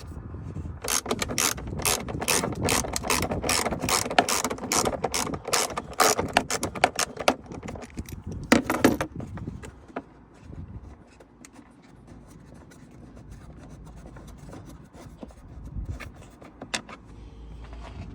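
Ratchet clicking quickly, about three clicks a second, as a Torx T20 screw is turned out. The clicking stops about nine seconds in, followed by a few faint knocks.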